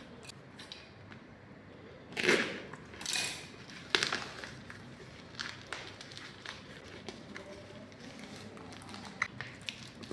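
Shipping package being handled and opened: two short rustling swishes about two seconds in, a sharp click at about four seconds, then scattered small taps and clicks.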